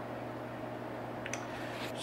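Quiet room tone: a steady low hum under a faint hiss, with two faint ticks in the second half.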